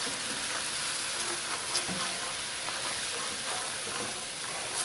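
Wire whisk stirring milk into a hot butter-and-flour roux in a nonstick pan: a steady sizzle with faint scraping and ticks of the whisk against the pan as the sauce thickens.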